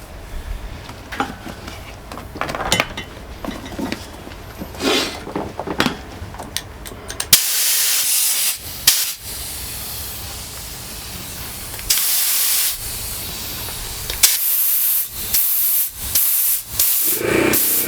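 A few light clicks and knocks of handling parts or tools, then a loud hiss of pressurised air setting in about seven seconds in. The hiss runs steadily for several seconds and then comes in short blasts toward the end.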